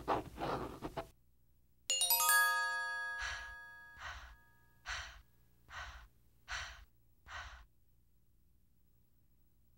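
Pencil scratching on paper for about a second. After a short pause comes a bright metallic ring, a sword sound effect, that fades over about two seconds, then six short, evenly spaced whooshes.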